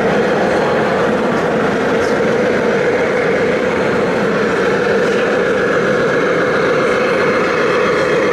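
A motor running steadily with a constant mid-pitched hum and an even level.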